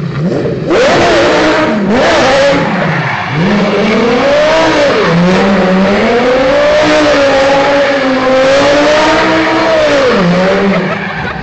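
Lamborghini engine revving hard during a burnout, with spinning tyres squealing on concrete. It blips twice, then holds high revs with the pitch wavering, and drops off just after ten seconds in.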